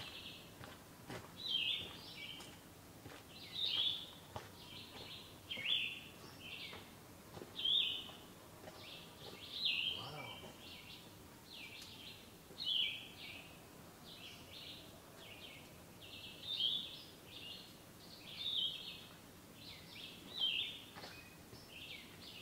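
A songbird singing short, high phrases over and over, one about every second or two, with a faint woodland background.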